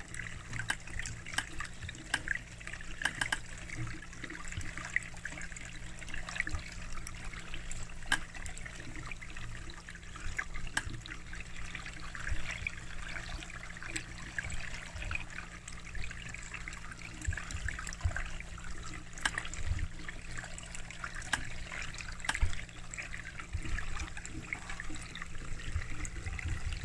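Water trickling in a garden koi pond, a steady crackly run of small splashes and ticks over a low hum.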